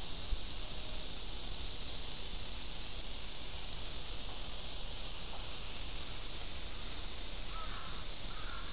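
A steady, high-pitched chorus of insects, with a crow cawing twice near the end.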